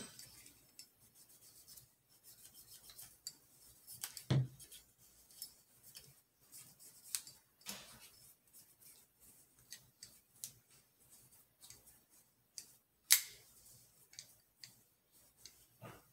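AR-15 bolt carrier group being handled and taken apart by hand: scattered small metal clicks, scrapes and rubbing, with two louder clacks about four and thirteen seconds in.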